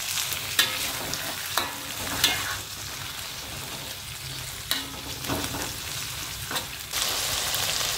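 Chili and tomato paste sizzling in hot oil in a wok while a metal spatula stirs it, scraping against the wok now and then. The sizzle grows louder near the end.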